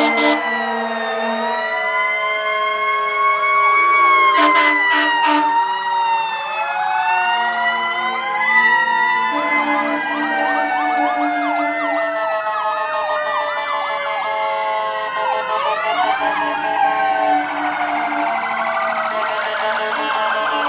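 Several fire engine sirens wailing at once, their rising and falling tones overlapping at different speeds, with a few quick rapid sweeps about four seconds in and again near sixteen seconds. Steady low horn blasts sound on and off every few seconds beneath the sirens.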